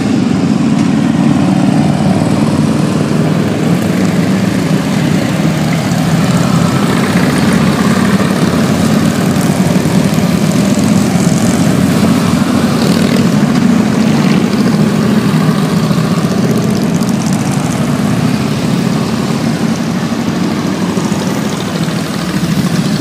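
A procession of cruiser and touring motorcycles and trikes riding past at low speed, a steady, loud rumble of many engines at once.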